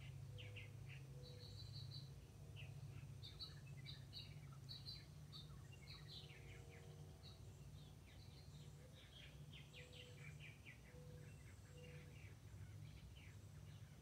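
Purple martins chattering in faint, rapid chirps throughout, over a low steady background rumble.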